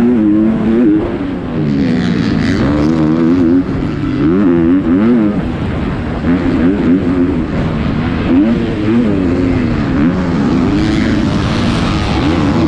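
Yamaha YZ250F single-cylinder four-stroke motocross bike racing at close range. The engine revs rise and fall over and over through throttle and gear changes.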